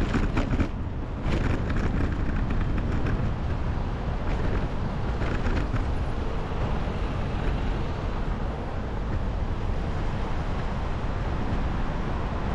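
Wind rumbling steadily on the microphone of a camera riding along on a moving bicycle, with a few short clicks or rattles in the first second or so.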